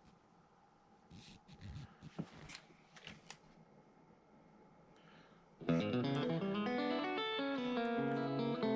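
A few faint clicks and knocks, then about two-thirds of the way in, electric guitar music with distortion starts abruptly and plays on at a steady level.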